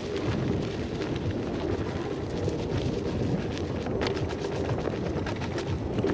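Wind rumbling on the microphone while an electric unicycle rides along a dirt singletrack trail, with frequent sharp clicks and knocks from the trail and the gear.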